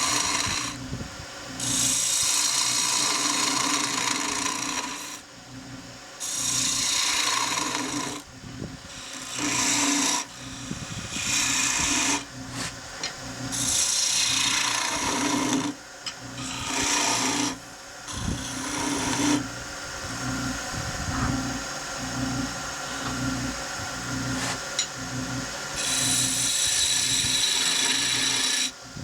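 Pear-wood spindle turning on a wood lathe, with a hand-held turning chisel cutting into it in repeated passes a second or two long. The lathe's steady hum carries on between the cuts.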